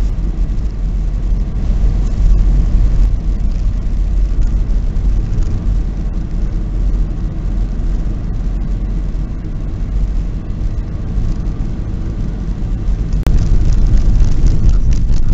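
Car driving at highway speed, heard from inside the cabin: a steady low rumble of road, engine and wind noise that grows louder near the end.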